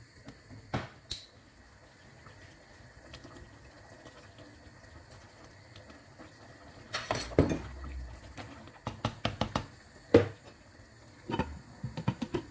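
Cooking pot sounds: scattered knocks of a wooden spoon against a metal pot, a short pour of water into the pot about seven seconds in, then several clinks near the end as a glass lid is set on.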